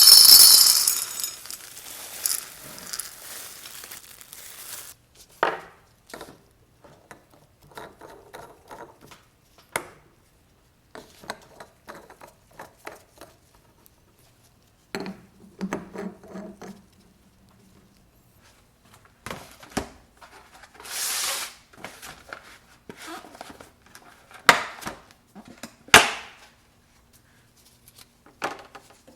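Food-storage containers and packaging being handled: scattered clicks, taps and rustles, with a brief rushing hiss at the start and another about two-thirds of the way through.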